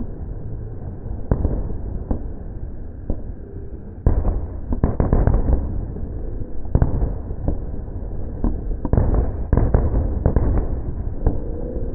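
Aerial fireworks shells bursting: a run of sharp bangs, bunched about four to five seconds in and again about nine to ten seconds in, over a continuous low rumble.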